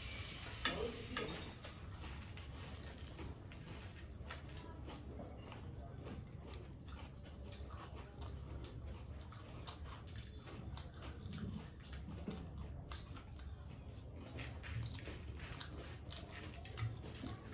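Close-up chewing and crunching of jhal muri, crisp puffed rice with chips and dal moth, as a long run of small irregular crackles, over a low steady hum.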